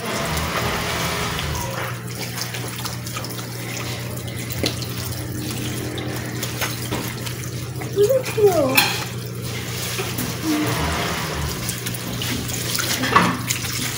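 Tap water running steadily into a laundry sink as a child's hair is rinsed under the stream.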